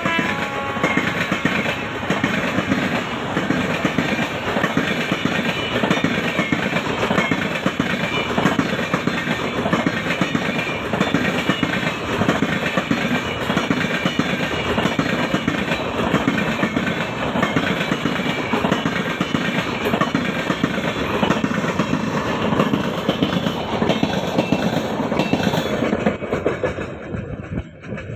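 Express train passing close by at speed, its wheels clattering rapidly over the rail joints in a loud, continuous rush. The end of a horn call fades out in the first second, and the train noise falls away over the last couple of seconds as the train clears.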